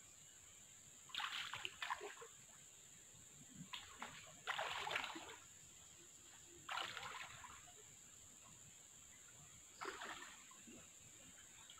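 Legs wading through knee-deep river water, splashing in four short bursts a few seconds apart.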